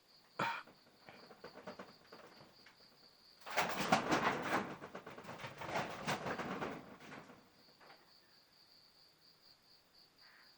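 Crickets chirping steadily in the background. A sharp knock about half a second in, then about four seconds of dense rustling and crinkling, like packaging being handled.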